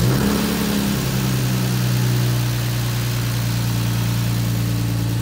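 Freshly rebuilt BMW M54B30 3.0-litre inline-six having just caught on its first start, running at a steady cold-start idle. It comes in a little higher and settles slightly about a second in.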